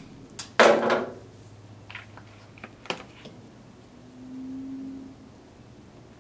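Plastic cable tie pulled tight with a quick, loud ratcheting zip, followed by a few sharp clicks of handling small parts and a low steady buzz lasting about a second.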